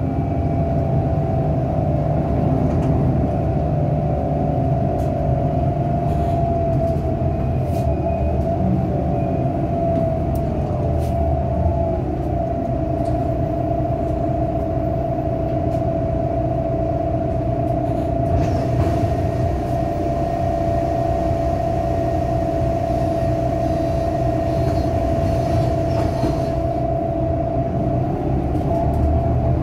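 City bus running, heard from inside the passenger cabin: a steady low engine rumble with a constant whine over it and a few faint clicks.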